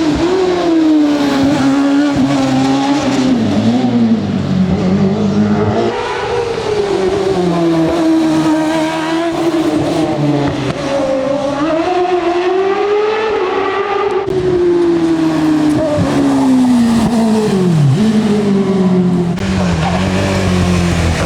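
Racing car engine driven hard, its note climbing in pitch and dropping back again and again through gear changes and lifts for corners. Near the end the pitch falls steeply, leaving a steady lower engine note.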